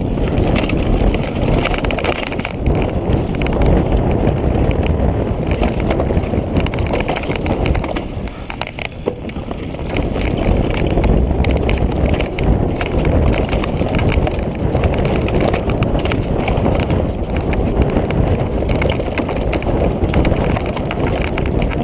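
Downhill mountain bike descending a rough dirt trail: continuous tyre noise over dirt and leaves, with frame and suspension rattling and knocking over rocks and roots. It eases briefly about eight seconds in.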